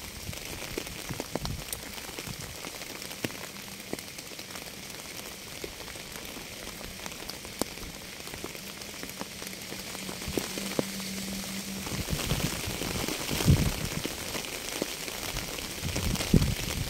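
Steady rain falling on a surface, a constant hiss dotted with single drop ticks. A faint low hum runs through the middle, and the patter turns heavier and lower near the end.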